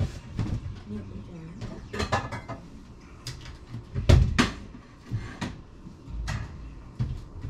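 A run of short knocks and clatters of objects being handled in a small room. The loudest is a pair of knocks about four seconds in.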